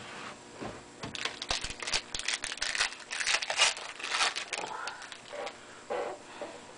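Hockey card packs and cards being handled, with a busy run of crinkling and rustling from about one to five seconds in.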